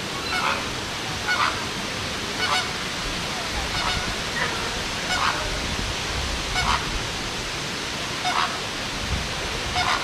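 A bird giving short, repeated calls, about one a second, over a steady background hiss.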